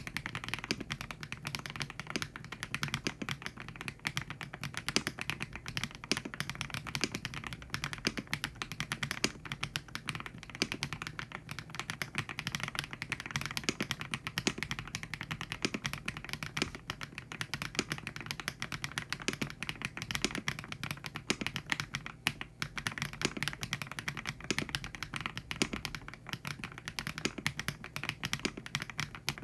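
Typing on a YUNZII YZ98 98-key mechanical keyboard with factory-lubed HMX Cheese linear switches: a steady stream of quick keystrokes, with a short pause about twenty-two seconds in.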